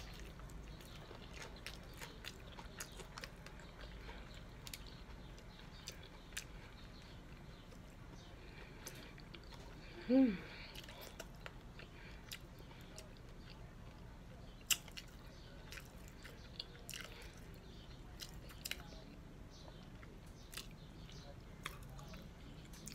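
Chewing and crunching of crispy nacho cheese flavored hard taco shells, with scattered small crunches. A short hummed "mm" sounds about ten seconds in.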